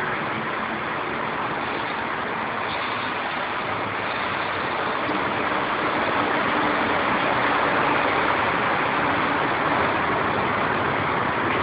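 Steady rushing noise of a Mexico City Metro FM-86 steel-wheeled train alongside the platform, growing a little louder about halfway through.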